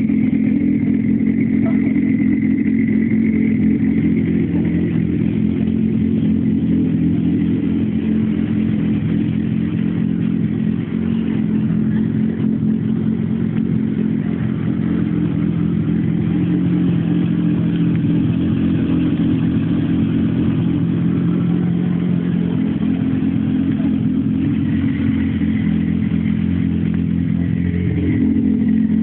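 Ford Focus 2.5-litre turbocharged inline-five engine idling steadily.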